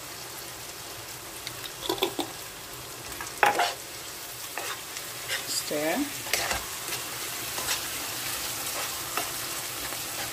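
Onion sauce base sizzling in oil in a frying pan as a spoon stirs it, with a few clinks and scrapes of the spoon against the pan.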